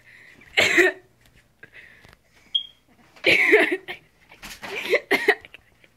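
Short wordless cries and exclamations, then a few sharp knocks as a broom is swung at a rat on the floor. A brief high squeak sounds about two and a half seconds in.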